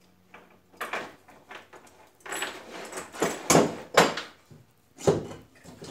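Steel twist link chain rattling and clinking as it is handled and laid on a wooden workbench, with tools knocked about on the bench. A run of irregular rattles and knocks, loudest a little past halfway, with another sharp knock near the end.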